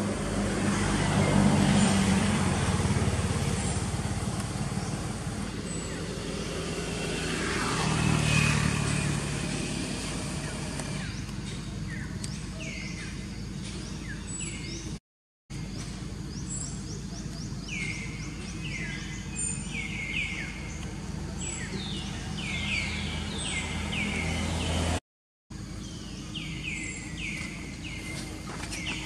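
Outdoor ambience: a motor vehicle passes twice in the first ten seconds, each swelling up with a low hum and fading away. After that, rapid high chirps, each falling in pitch, repeat in runs through the rest, and the sound cuts out briefly twice.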